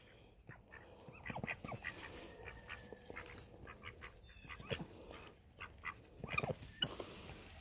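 Hens foraging, giving faint, scattered short clucks three or four times, with light ticking in between.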